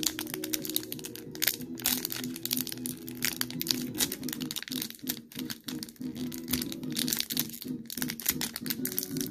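Foil Pokémon booster pack wrapper crinkling as it is handled and worked open by hand, a dense run of crackles, with background music underneath.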